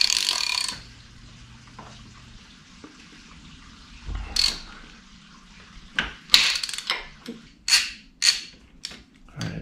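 Ratchet wrench with an 8 mm hex bit backing out a motorcycle handlebar mount bolt, metal on metal. A short rasp at the start, then a string of separate sharp clicks in the second half.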